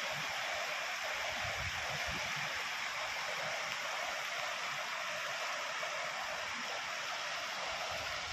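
Muddy floodwater pouring over the earthen bunds of flooded paddy fields: a steady rush of water, the overflow from a breached tank flooding the fields.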